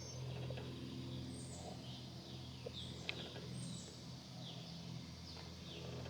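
Birds chirping: a string of short, high chirps that sweep downward, about one every half second, over a steady low hum.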